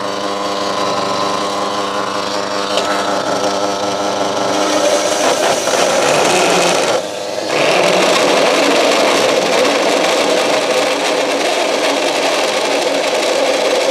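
Small electric bench saw running unloaded with a steady hum for the first few seconds, then sawing into a piece of oak, louder and noisier. The cut lets up briefly about seven seconds in, then goes on.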